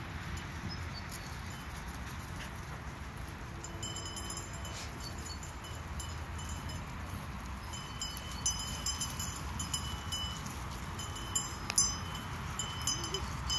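Small bells jingling in short ringing clinks, a few times about four seconds in and then often from about eight seconds on, over a steady low background noise.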